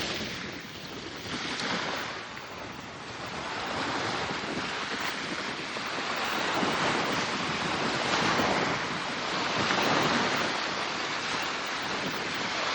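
Small waves washing onto a lake shore, surging and easing every couple of seconds and growing louder after about four seconds, with wind on the microphone.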